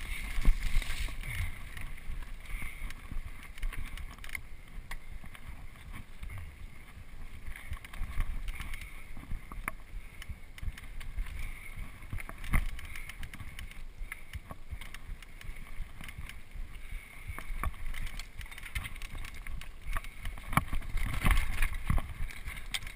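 Mountain bike running fast down rough dirt singletrack: a steady rumble of tyres over dirt and roots, with frequent knocks and rattles from the bike jolting over bumps, and wind on the microphone.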